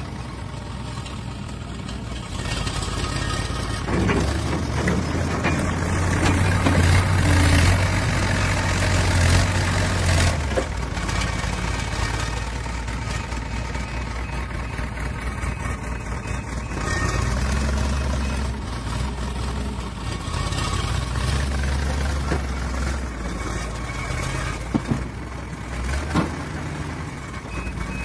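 Backhoe loader's diesel engine running, revving up twice under load as the front bucket digs into soil and lifts it to the trolley. Two sharp knocks near the end.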